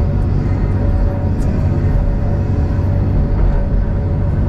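Sumitomo 5040 log processor's engine and hydraulics running under load, heard from inside the cab: a steady, deep drone with a faint steady hum on top.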